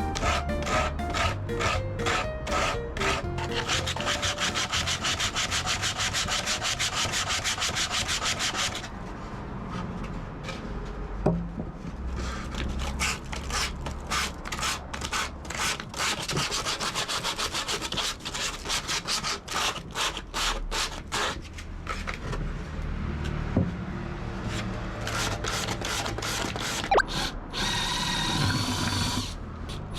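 Wood being sawn or rasped by hand: fast repeated rasping strokes, steady for the first several seconds, then more uneven. A drill whirs briefly near the end.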